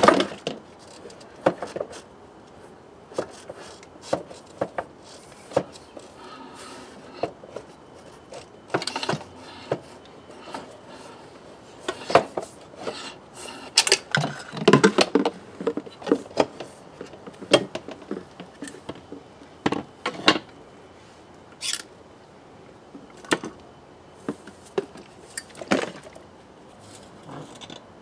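Scattered metallic knocks, clicks and scrapes as the BMW K75's gearbox is worked loose and slid back off the engine, with a sharp knock at the very start and a busy stretch of scraping and knocking about halfway through.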